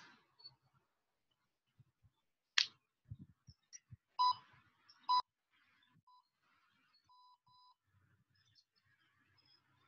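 Short electronic beeps: two clear beeps about a second apart near the middle, then a few fainter ones, as from an interval workout timer. Just before them come a sharp click and a few light knocks as a pair of dumbbells is picked up.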